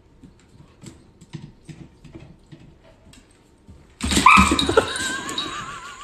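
A dog's claws ticking faintly on a hardwood floor. About four seconds in, a sudden loud, high squeal starts, with a wavering pitch that carries on.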